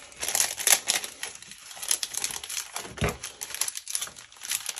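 Clear plastic packaging sleeve crinkling, with paper rustling, as a stack of paper library pockets and labels is slid back into it: an irregular run of crackles, busiest in the first second.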